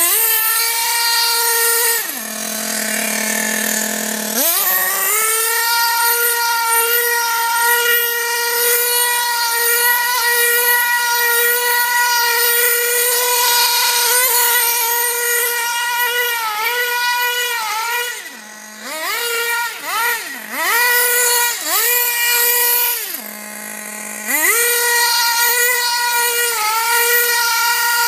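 Small nitro glow engine of a radio-controlled buggy running at a high, buzzing pitch under throttle. It drops back to a low idle about two seconds in and again a little after twenty seconds, with a string of quick throttle blips in between, before revving back up to full speed.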